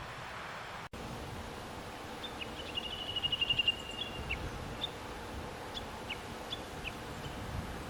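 A bird's rapid, even trill of high notes lasting about two seconds, followed by a few scattered single call notes, over steady outdoor background noise.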